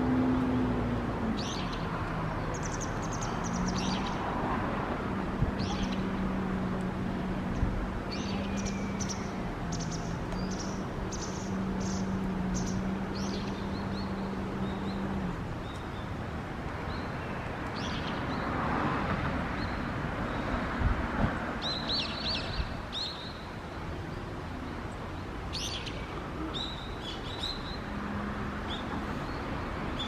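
Birds chirping in short, high calls scattered throughout, over a steady background noise. A low steady hum runs through roughly the first half and comes back near the end.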